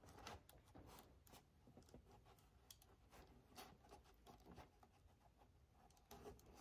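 Near silence, with faint scattered ticks and rustles of hands pressing a fabric storage bag against the plastic inner door panel of a Can-Am Maverick Sport Max.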